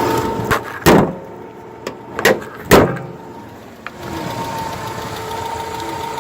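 A 2002 Nissan Altima's 2.5-litre four-cylinder engine idling steadily, with Marvel Mystery Oil added to its oil. Over it come about six sharp knocks and clunks, the two loudest about one second and nearly three seconds in.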